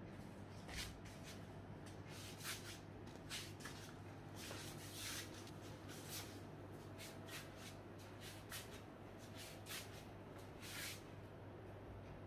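Soft, brief rubbing and brushing noises, about a dozen at irregular intervals, over a low steady hum.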